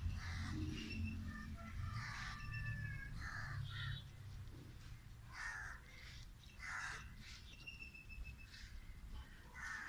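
Crows cawing in the background, a short harsh call repeated several times, every second or two.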